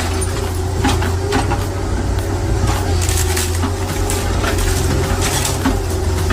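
Heavy engine-driven machine running steadily under a low hum, with irregular sharp cracking and crunching as material is broken up.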